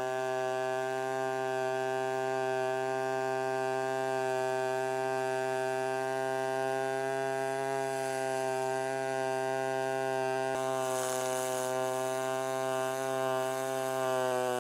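Pulsed MIG welding arc of an HTP Pro Pulse 220 MTS on aluminum: a steady, pitched buzz made by the welder's pulse mode, the bead running without a break. Near the end the pitch drops a little.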